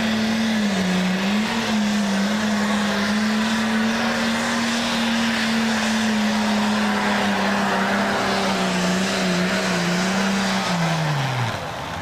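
Super stock pulling tractor's turbocharged diesel engine running flat out under load down the track. It holds a steady high pitch with slight dips, then winds down sharply near the end as the pull ends and the throttle comes off.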